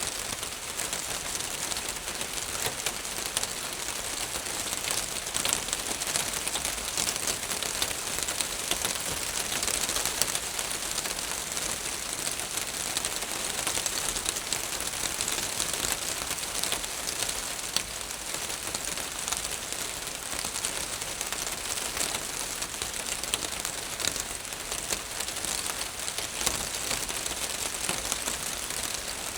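Rain falling steadily on a roof: a constant hiss with many small, sharp drop ticks scattered through it.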